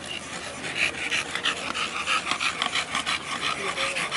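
Bully dog panting hard with its tongue out, quick breathy rasps about three to four a second, picking up about a second in.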